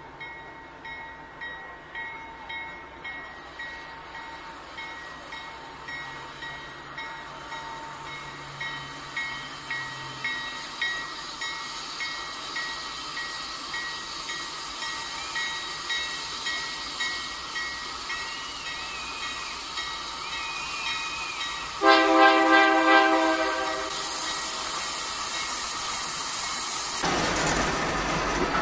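An approaching diesel passenger train on a steel truss bridge: a bell rings steadily, about one and a half strokes a second, growing louder. About 22 seconds in, the locomotive's horn sounds one chord-like blast of about two seconds, the loudest part, followed by the steady rumble and hiss of the train rolling onto the bridge.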